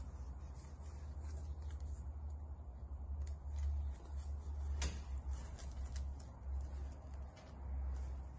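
Light clicks and rubbing from a nylon zip tie being threaded and pulled tight around cables on a 3D printer's aluminium extrusion frame, over a steady low hum.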